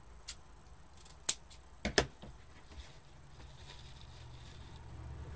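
Scissors snipping ribbon as its end is cut into a dovetail (V-notch): four sharp snips in the first two seconds, the loudest two close together. After that, faint rustling of ribbon being handled.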